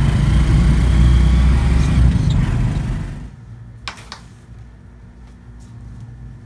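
Road traffic with motorbikes and cars passing, a steady low rumble that cuts off about three seconds in. Then two quick soft knocks as a fabric bag is set down on a marble tabletop.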